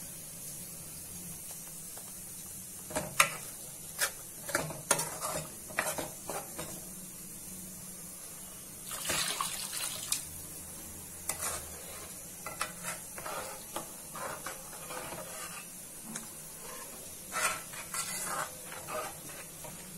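Metal ladle scraping and knocking against a metal kadai while stirring thick curry masala, with water poured into the pan from a jug about nine seconds in and then stirred in.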